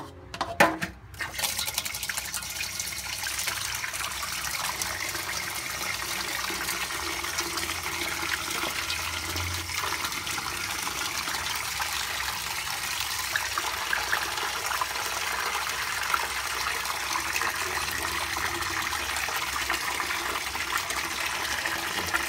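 Tap water running steadily into a basin of beef tripe as it is washed by hand, after a few short knocks in the first second.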